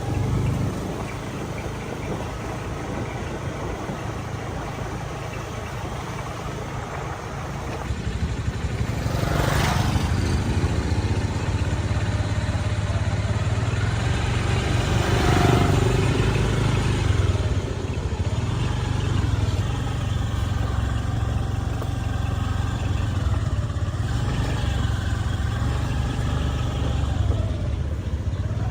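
Chainsaw engine running, its speed rising and falling, with a brief louder noise about nine seconds in.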